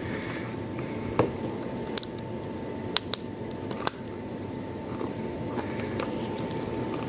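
Small plastic and metal clicks and taps, about five scattered through the first four seconds, as a connector and its small adapter board are worked into place on a floppy drive mechanism, over a steady background hum.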